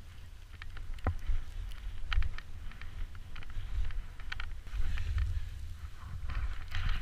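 Snowboard sliding through deep powder, picked up by an action camera: low wind noise on the microphone with short, irregular hisses of snow spraying off the board in the turns.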